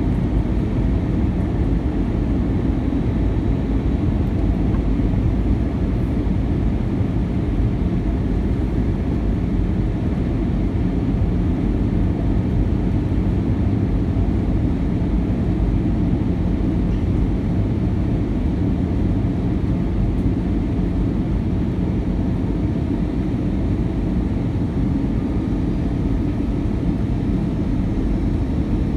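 Steady cabin noise inside an Airbus A319 in flight: an even rush of airflow with a low engine drone and a few faint steady tones. The noise holds level throughout, with no bumps or changes.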